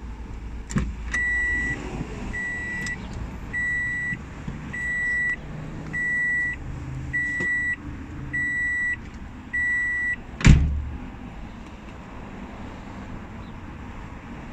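A vehicle's electronic warning beeper sounds eight evenly spaced high beeps, about one a second, then stops. A single loud thump follows, the loudest sound. A low steady rumble runs underneath.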